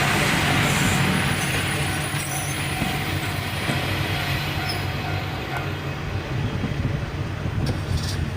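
Kanto Railway Ryugasaki Line diesel railcar running over the level crossing with a steady rumble of engine and wheels, gradually getting quieter as it moves away.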